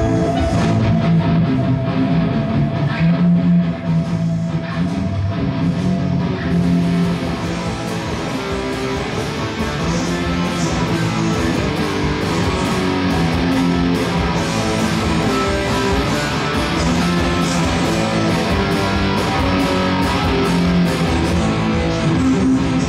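Electric guitar strumming punk rock chords, played continuously as part of a full rock music mix.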